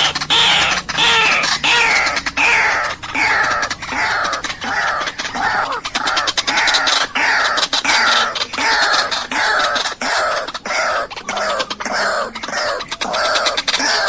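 White-breasted waterhen (ruak-ruak) calling: a long unbroken run of falling notes, about two a second, with sharp clicks between them.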